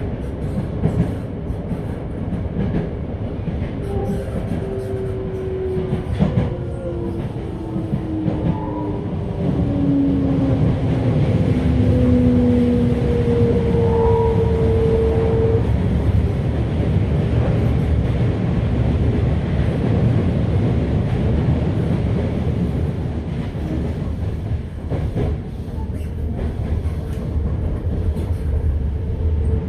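On-board running sound of a Toei 5300 series electric train: steady wheel-on-rail and bogie rumble. A few seconds in, an electric motor whine slides downward in pitch over several seconds as the train slows.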